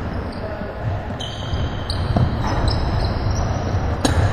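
Basketball game on a hardwood court: a ball bouncing, short high-pitched sneaker squeaks, and a sharp clang about four seconds in as a shot hits the rim.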